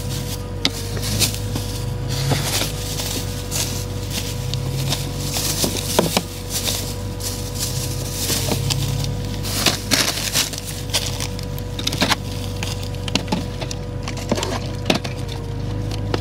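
Plastic grocery bags rustling and crinkling, with scattered clicks and knocks as bagged groceries and cases of soda are lifted out of a car trunk, over a steady low hum.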